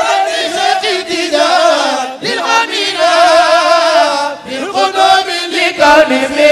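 A voice chanting an Arabic devotional song (a Sufi qasida), holding long wavering notes with a pronounced vibrato, with a few short breaks between phrases.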